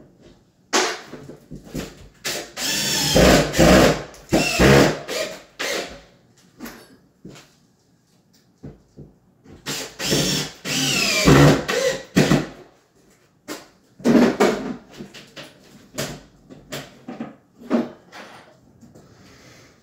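A power drill driving screws during cabinet installation: two long runs with the motor pitch rising and falling, and a shorter run later, with knocks and clicks between them.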